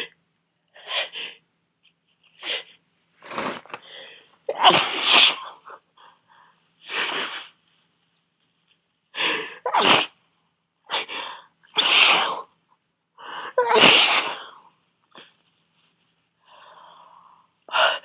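A person with a heavy head cold sneezing over and over in a long fit, a dozen or so bursts with short gaps between, the loudest about five and fourteen seconds in.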